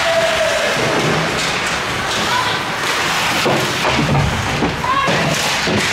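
Ice hockey play in a rink: several thuds against the boards from the puck and players, over a steady wash of skate and arena noise, with a few short shouted calls.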